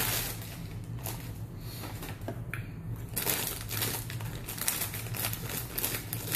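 Plastic snack bag of mini crunchy bagels crinkling as it is handled and shaken, then cut open with scissors; the crackling grows denser and louder from about three seconds in.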